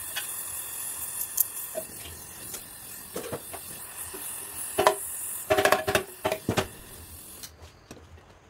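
LPG gas torch flame hissing steadily on an aluminium engine casing, cutting off about seven and a half seconds in. Over the hiss a hammer taps the metal with short ringing strikes: a few scattered ones, then a quick cluster of about five between five and six and a half seconds in.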